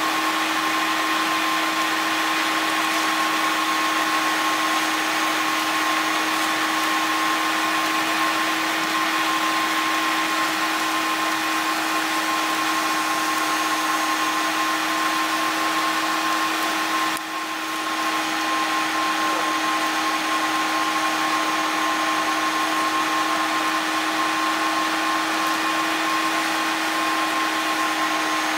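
Steady cabin noise of a truck driving on a wet, slushy road: an even whirring rush with a constant low hum and a thin steady whine, dipping for a moment about two-thirds of the way through.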